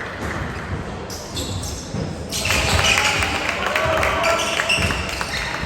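Ball thumping on a hard gym floor among the voices of players and spectators, with the voices getting louder about two seconds in.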